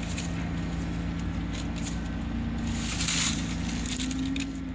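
A steady low mechanical hum, with a few faint clicks and a short rustle about three seconds in.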